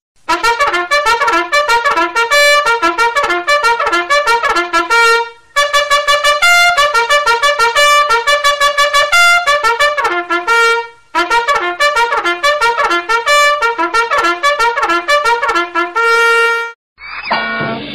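A trumpet playing a fast melody of short, detached notes in three phrases, with brief breaks about five and eleven seconds in. Just before the end a different sound with a rising sweep starts.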